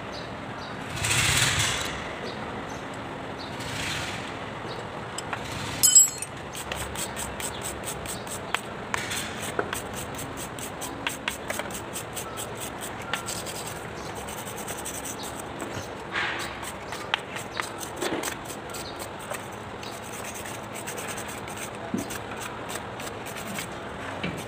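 Hand wire brush scrubbing dirt and rust off a tractor's front axle and final-drive housing in quick back-and-forth rasping strokes, about four or five a second. A sharp metallic clank comes about six seconds in, and a short louder scraping noise about a second in.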